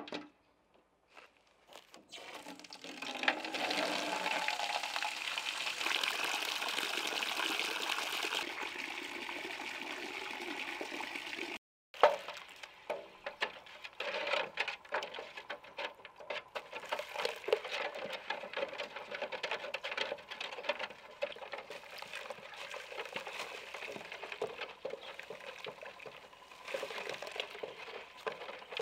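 White powder poured from a paper sack into a metal bucket of water, a steady pouring hiss. After a break it is stirred in with a wooden stick while more is poured: uneven sloshing and scraping with small knocks against the bucket.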